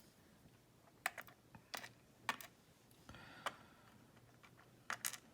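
Faint, scattered light clicks and taps of tweezers and small lock parts being handled on a hard work surface, about seven sharp ticks spaced irregularly, with a brief soft rustle in the middle.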